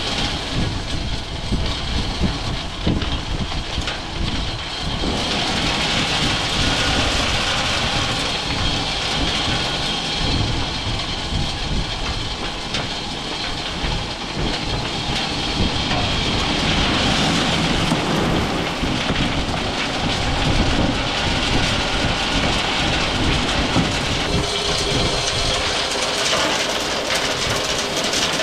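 Truck towing a loaded dump trailer on the road: steady road rumble with the trailer rattling.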